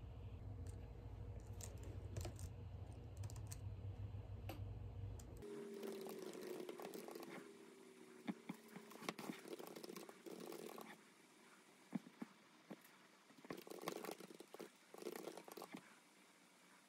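Typing on a computer keyboard: irregular key clicks in short runs, starting about five seconds in. Before that, a steady low hum with a few light ticks.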